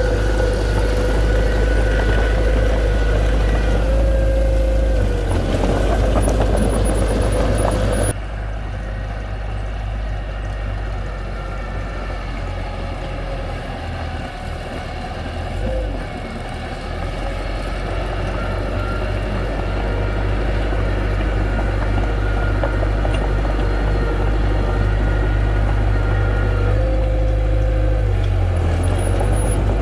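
Diesel engines of heavy construction machinery running steadily with a deep rumble. About eight seconds in the sound drops abruptly and changes, then slowly builds back up.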